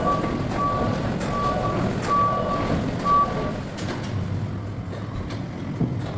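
A heavy vehicle's reversing alarm beeping in short, evenly pitched tones over its running engine. The beeps stop about three and a half seconds in, and the engine keeps running.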